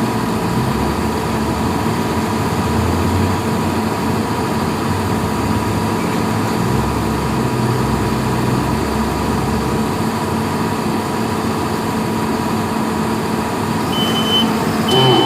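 Heavy vehicle engine running steadily. Near the end a reversing alarm starts beeping at an even pace, about one beep a second.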